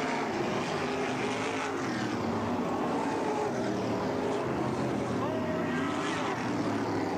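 A pack of winged sprint cars' V8 engines running hard while racing, several engine notes overlapping and rising and falling continuously as the cars go through the turns.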